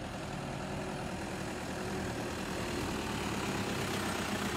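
Steady road traffic noise with vehicle engines running, growing slightly louder.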